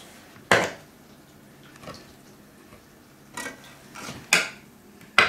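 A spoon clanking and scraping against a stainless steel pan and a wooden bowl as cooked rice is scooped out and tapped off. There are about half a dozen sharp knocks, the loudest about half a second in and again near the end.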